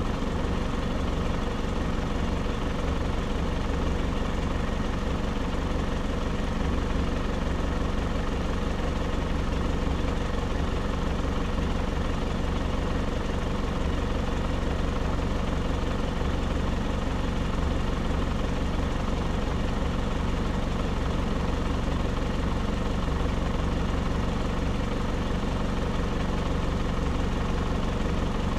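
Off-road 4x4's engine running steadily at low, even revs, a constant low hum with no change in pitch.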